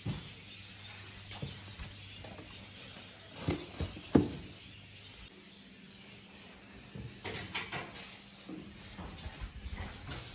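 Scattered knocks and clatter from a plastic stool and a metal charcoal stove being handled, the loudest a sharp knock about four seconds in, with a burst of clattering later on, over a steady low hum.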